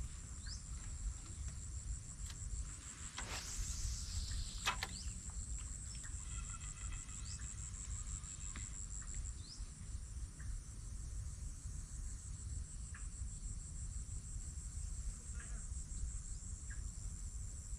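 Insects trilling steadily in a high, fast-pulsing chorus, over a low rumble. A brief swishing sweep and a couple of clicks come about three to five seconds in.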